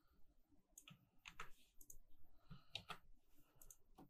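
Several faint, separate clicks from a computer mouse and keyboard as a name is copied and pasted into the fields of a web form.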